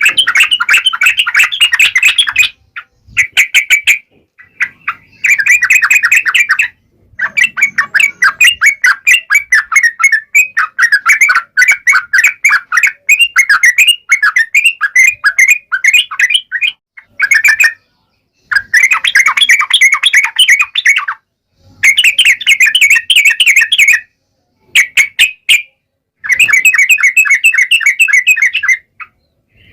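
Yellow-vented bulbul (trucukan) singing: loud, fast runs of short chattering notes, broken every few seconds by abrupt short pauses.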